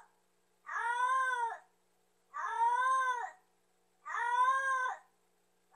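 Domestic cat meowing over and over: three long, even meows of about a second each, each rising and then falling in pitch, with the next one starting right at the end.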